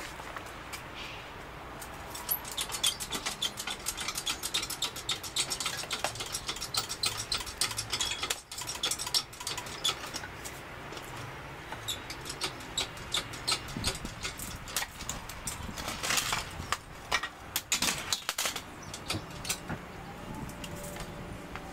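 Rapid metallic clicking and rattling from an engine hoist and its chain as an engine and transmission are lifted, coming in runs with a few short breaks.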